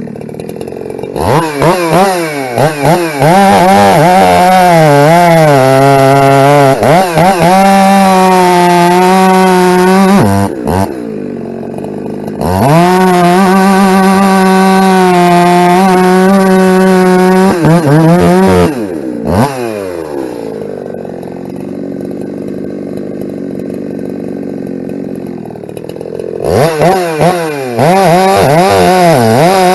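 Ported Husqvarna 372 two-stroke chainsaw revving from idle and running at full throttle through two long cuts, its pitch wavering as the chain loads in the wood. Between the cuts it drops back to idle, then revs up again near the end.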